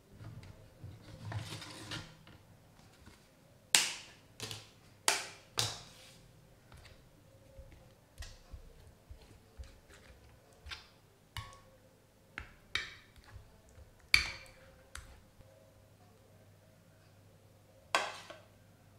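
Irregular sharp clinks and knocks of kitchenware being handled and set down, with a rustling scrape in the first couple of seconds.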